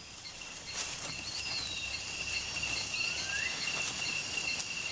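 Rainforest ambience: a steady high-pitched insect trill, with a few short rising bird whistles.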